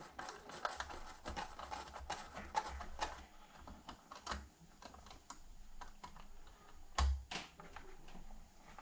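Hand tools and small metal hardware clicking and tapping irregularly while a threadlocked nut on the saddlebag latch is worked, with one louder knock about seven seconds in.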